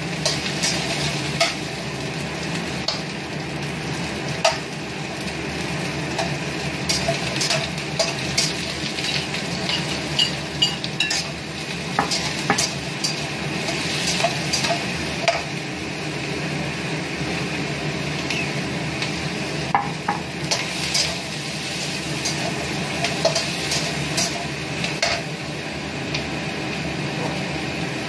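Metal slotted spatula scraping and clinking against a stainless steel wok in irregular strokes while onion and shrimp sizzle as they are stir-fried.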